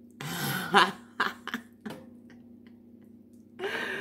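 A cooked shrimp being peeled by hand over a plastic seafood-boil bag: a wet rustle, then four sharp clicks as the shell cracks and pulls away, and another short rustle near the end.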